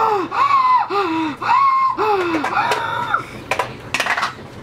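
A child's high-pitched wordless vocalizing: a string of short sing-song 'ooh' sounds, each rising and falling, about two a second. A few sharp clatters of hard toy pieces come near the end.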